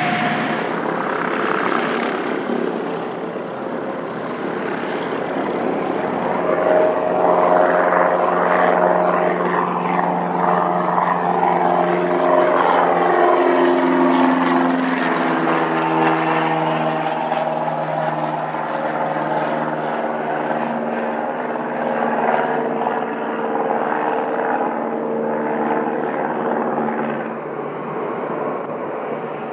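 Cessna 172S Skyhawk SP's four-cylinder piston engine and propeller running. The drone swells in the middle, and its pitch drops about halfway through. Near the end it gives way to another piston aircraft's engine.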